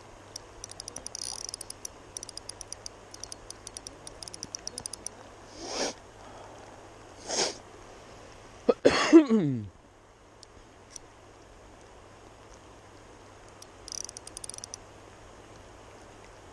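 KastKing Zephyr 1000 spinning reel clicking rapidly for about five seconds while a hooked chinook salmon is played on light line, then clicking again briefly near the end. In between come two short rushes of noise and, about nine seconds in, a loud short vocal sound that falls in pitch.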